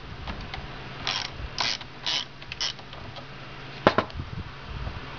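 Socket ratchet wrench undoing the 3/4-inch nut on a Unimat SL lathe's spindle: four short bursts of ratchet clicking as the handle is swung back, then a single sharp metal click a little later.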